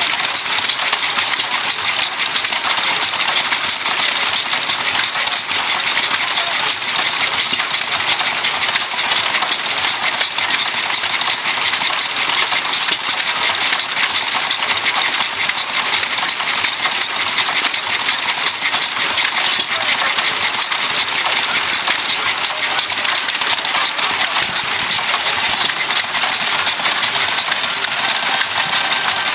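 Antique single-cylinder horizontal stationary gas engine running steadily, with dense rapid mechanical clicking from its moving parts.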